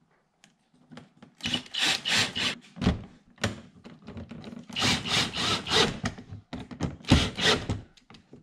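Hard plastic and rubber rubbing and scraping together in a run of short, rough bursts as a rubber air dam is pushed and worked into place against a car's plastic front undertray.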